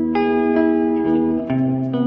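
Instrumental music: sustained melodic notes that change every half second or so over a held bass note, which steps to a new pitch about one and a half seconds in.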